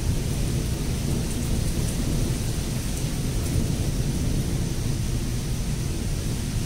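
Steady rain hissing over a continuous low rumble of thunder, with no single sharp crack.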